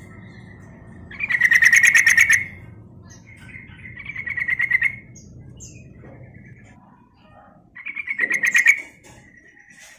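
Yellow-vented bulbul calling: three loud bursts of fast, rapidly repeated chattering notes, each about a second long, with softer notes between them.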